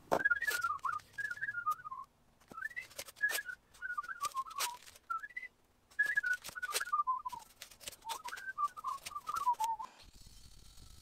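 A man whistling a wandering tune in short phrases that mostly fall in pitch, over the crackling rips of painter's tape being pulled off the roll and pressed onto a stone sill. Both stop abruptly near the end.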